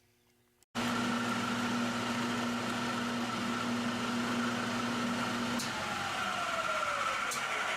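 A small electric motor runs steadily with a whir, starting abruptly. Late on, one of its tones stops and another slides down in pitch.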